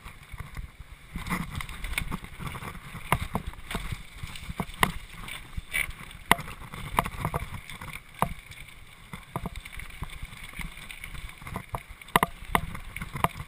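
Mountain bike rattling and clattering down a rocky dirt trail, with irregular sharp knocks as the wheels hit rocks and roots over a steady low rumble of wind and tyre noise.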